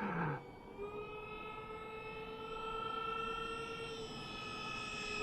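Twin 70 mm six-blade electric ducted fans of a radio-controlled plane whining steadily in cruise flight at part throttle. Their pitch dips slightly about four seconds in, and they grow louder toward the end.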